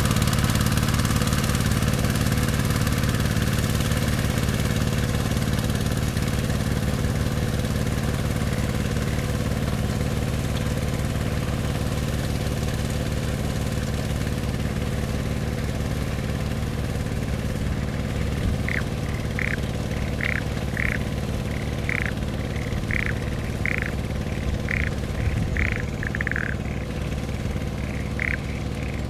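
Yanmar YC950 walk-behind tiller's engine running steadily under load as it churns through a flooded rice paddy, slowly fading as it moves away. From about two-thirds in, a run of short, high calls, one or two a second, sounds over it.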